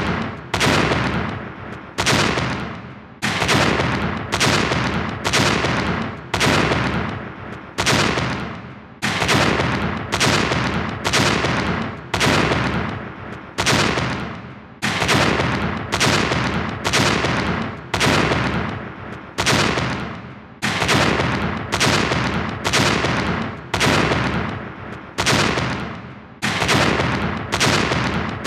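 An explosion sound effect, a sudden blast that dies away over about a second, looped over and over at roughly one blast a second.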